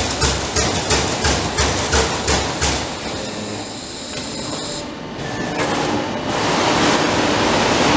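Trumpf 200 Rotation CNC punch press punching sheet metal in a quick series of strokes, about three a second. The strokes stop about three seconds in, and a steady machine noise follows, louder toward the end.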